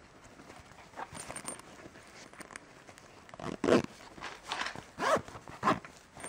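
Handling noise from a black fabric camera case being moved and rubbed by hands close to the microphone: a run of uneven rustles and scrapes, loudest from about three and a half seconds in.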